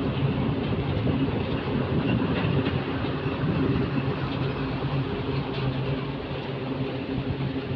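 A heavy motor vehicle's engine running with a steady low hum, over a steady wash of noise from the fast-flowing floodwater. The hum weakens a little near the end.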